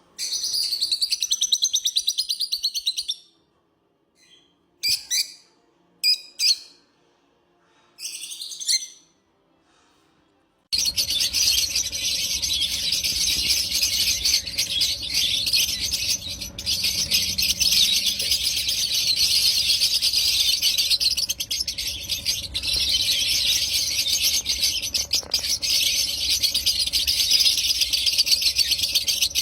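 Lovebirds chirping and chattering in high-pitched calls: a burst of chatter, a few short separate calls with pauses between, then from about a third of the way in, dense continuous chattering.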